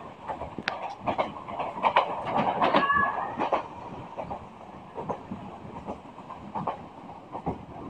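Upokul Express passenger train running, heard from its open window: steady running noise with the wheels clattering and knocking irregularly over the track. The clatter is loudest about two to three seconds in.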